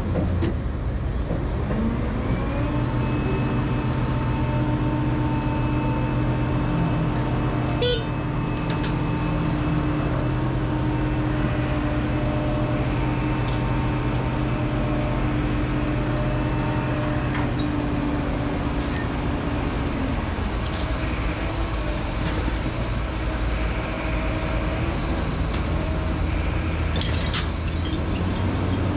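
Liebherr R976 crawler excavator's diesel engine and hydraulics running, rising in pitch about two seconds in as it works under load, holding there, then settling back about twenty seconds in and rising again near the end. A single sharp knock sounds about eight seconds in.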